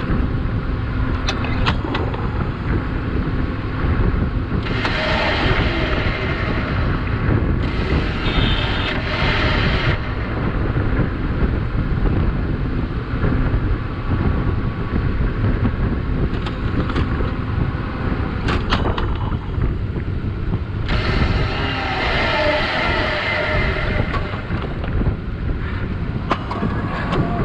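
Superwinch Talon electric winch running in two bursts, a steady whine of about five seconds starting about five seconds in and another of about four seconds starting about twenty-one seconds in, each switching on and off sharply. Strong wind buffets the microphone throughout.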